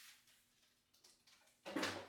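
Quiet room with faint handling noises, then one short knock or clatter near the end.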